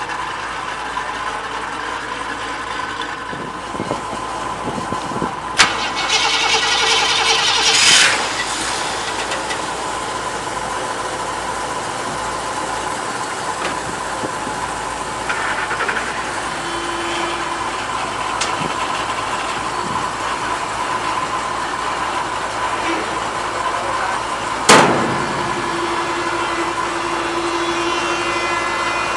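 Lincoln Continental convertible's engine running as the car is driven down off a trailer ramp. There is a sharp click and a short rush of noise about six seconds in, and a single sharp clunk near the end that is the loudest sound.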